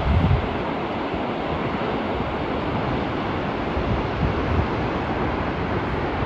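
Steady rushing noise, with low gusts of wind buffeting the microphone about a quarter-second in and again around four and a half seconds in.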